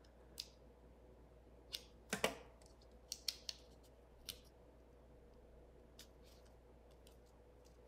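Faint, scattered clicks and light taps of cardstock being handled as a die-cut paper sentiment is lifted and pressed back straight on a tag, about eight in all, the loudest about two seconds in, over a faint steady hum.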